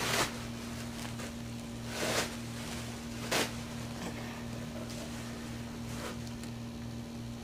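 Steady low electrical hum, with three short rustles: one at the start, one about two seconds in and one about three and a half seconds in.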